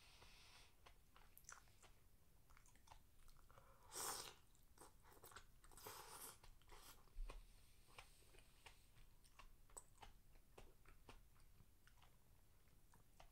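A person chewing and crunching food, heard as many small crisp clicks. Two louder noisy slurps come about four and six seconds in, as a bowl is held to the mouth.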